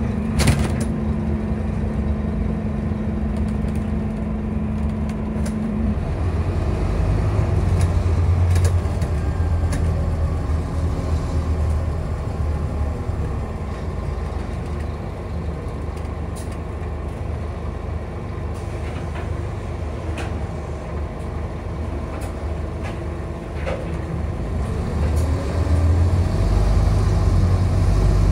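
Scania bus heard from inside the passenger saloon: engine and drivetrain running steadily as the bus drives, with a steady hum in the first few seconds. The engine pulls harder twice, once early on and again near the end, where a whine rises in pitch as the bus speeds up; a sharp click sounds just after the start.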